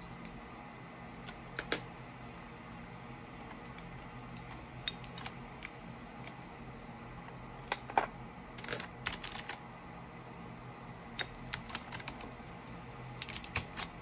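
Mechanical keyboard (Keychron K8 Pro) keys and keycaps clicking in irregular scattered clusters, as when keycaps are pressed on and keys tried, not steady typing. A faint steady low hum runs underneath.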